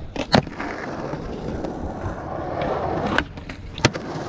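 Skateboard landing an ollie on concrete: two sharp clacks of wheels and deck a moment in, then the wheels rolling steadily over the concrete. Two more sharp clacks come in the second half.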